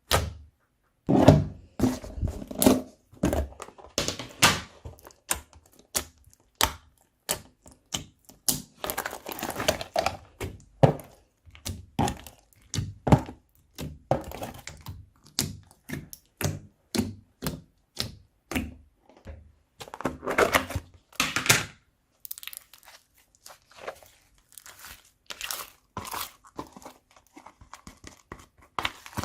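Slime mixed with crunchy foam being worked by hand: a steady run of irregular sticky pops and clicks, with two longer crackling stretches, one about a third of the way in and one about two thirds in.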